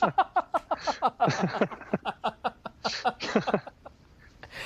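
A man laughing hard: a quick run of short, falling 'ha' bursts that dies away near the end.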